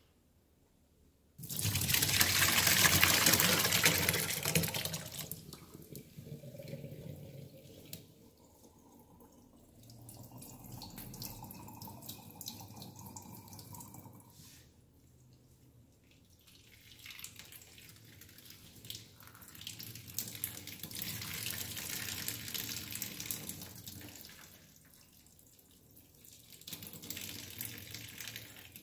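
Hot whey and curds poured from a pot into a cheesecloth-lined strainer, splashing into a stainless steel sink. The loudest pour starts about a second and a half in. After it, whey keeps streaming and trickling from the cheesecloth in quieter waves, swelling again later.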